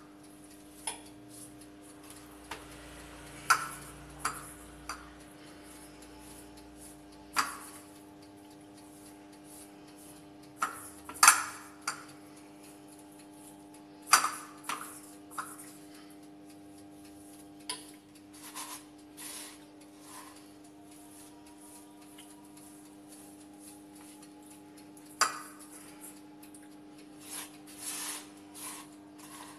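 Irregular clicks and knocks of hands handling a raw pork knuckle on a wooden cutting board and reaching into a small ceramic bowl of spice rub, the loudest about eleven seconds in. A steady low hum runs underneath.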